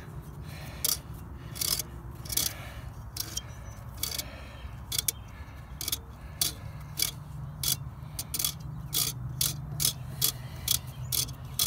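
Irregular clicks and scrapes of the Flint & Walling CJ101 pump's internal parts being worked by hand on its shaft after the impellers come out, over a steady low hum.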